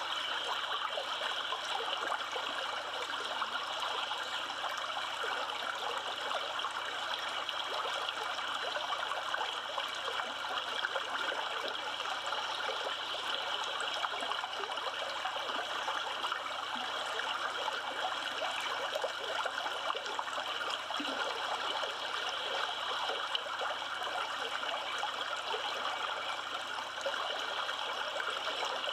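A river's flowing water rushing steadily, an even rush with nothing standing out from it.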